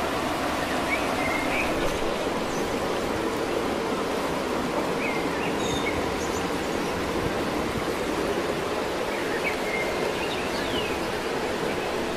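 Steady rushing of flowing water, with a few short faint chirps now and then.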